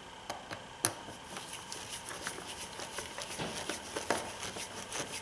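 Light clicks and rustling from gloved hands handling the mass airflow sensor and its plastic wiring connector on the intake, with one sharper click about a second in.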